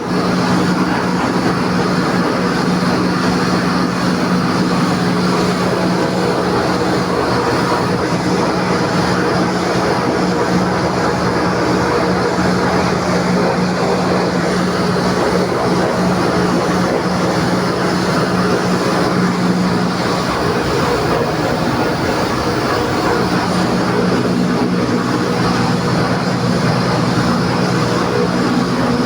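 Industrial air compressor running, a loud steady machine hum with a strong low tone over a broad mechanical hiss.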